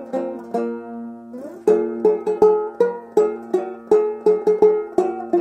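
Resonator banjo picked in a slow, medieval-sounding melody, each plucked note ringing briefly. About a second in, one note is held, then a short upward slide leads back into steady picking at about three notes a second.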